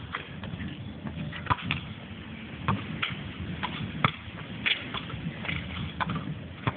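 Irregular short thuds and taps of a basketball game, ball bounces and footsteps on the court, about one a second over a low, steady background noise.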